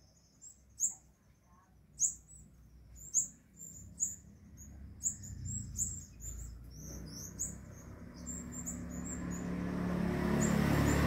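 Sunbirds calling: sharp, very high chirps about once a second, coming faster from about halfway, the parents' calls to a fledgling out of the nest at roosting time. A low rumble builds through the second half and becomes the loudest sound.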